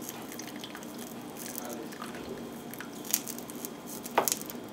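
Faint steady hiss of a lit gas stove burner, with light crackles and two sharper clicks about three and four seconds in.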